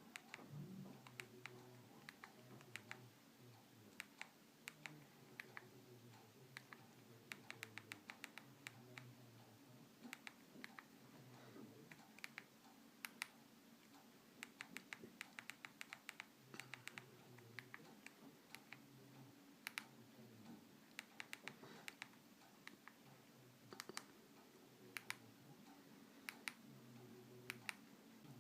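Near silence broken by faint, irregular clicks and taps of a mobile phone being operated by hand, some coming in quick runs of several.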